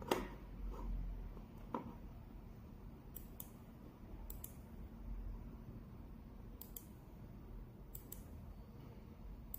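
Computer mouse button clicks, mostly in quick pairs a second or two apart, with a soft knock right at the start and another at about two seconds.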